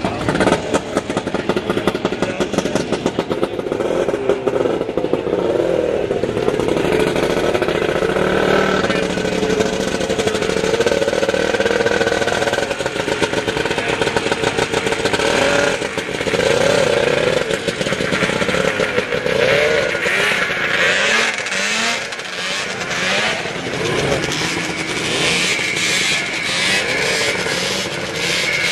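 Vintage snowmobile engines running, their pitch rising and falling as they are revved, with a rapid ticking that becomes stronger in the second half.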